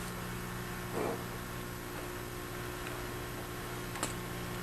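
Steady low electrical hum with faint hiss, broken by a soft knock about a second in and a short click about four seconds in.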